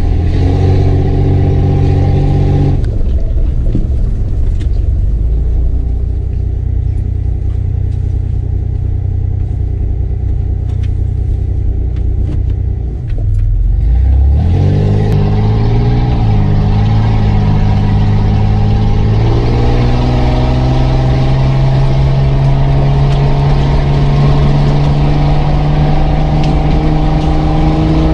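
Mitsubishi Pajero's engine heard from inside the cabin as the vehicle drives off. The engine note drops and quietens a few seconds in. About halfway through it rises sharply under acceleration, then climbs slowly and steadily as the vehicle picks up speed.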